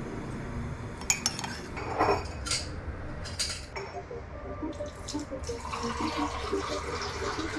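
Sharp clinks of a cup and spoon, then liquid being poured and stirred, as instant coffee is made.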